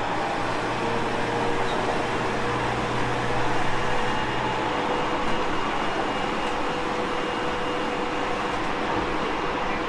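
Inside a Tobu 30000 series electric train running between stations: a steady rumble of wheels on rail with a few faint steady motor tones. A low hum stops about five seconds in.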